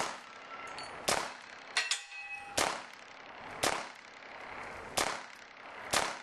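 Ruger SR-22 .22 LR pistol firing CCI Stinger rounds at steel plates: about seven sharp shots at roughly one a second, unevenly spaced. A short metallic ring of struck steel follows the shot about two seconds in.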